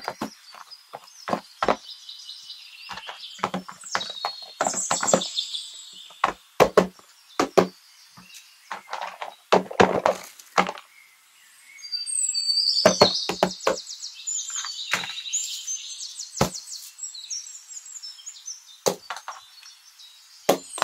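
Cardboard boxes handled and set down on a rubber mat: scattered taps, knocks and a scrape, with birds chirping in the background, most busily about halfway through.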